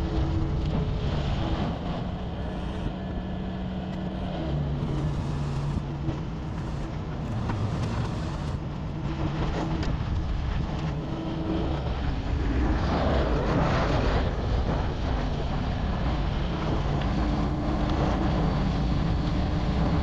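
Diesel tractor engines running, their pitch shifting as they work. About 13 seconds in it grows louder as a Massey Ferguson tractor towing a loaded forage wagon passes close.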